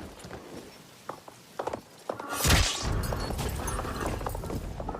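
A lance strike on horseback: a single loud crashing impact about halfway through, preceded by a few light clicks and followed by a steady low rumbling.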